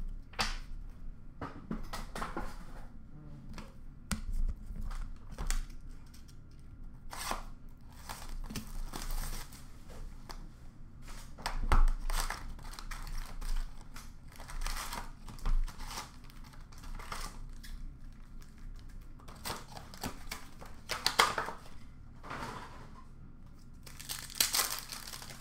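Sealed hockey card boxes and packs being torn open and handled: wrappers tearing and crinkling in short, irregular rustling bursts, with the louder tears about 7, 12, 21 and 24 seconds in.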